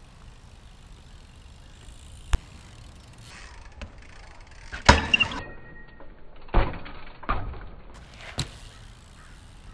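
BMX bike knocking and clattering on concrete as it is ridden onto ledges and hopped: a sharp knock about two seconds in, the loudest clatter of several hits around five seconds in, and more knocks and a rattle near seven and eight seconds.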